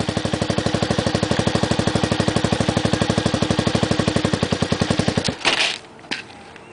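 Honda XL250's single-cylinder four-stroke engine idling with an even, rapid thumping beat of about a dozen pulses a second. About five seconds in it cuts out, followed by a short rush of noise.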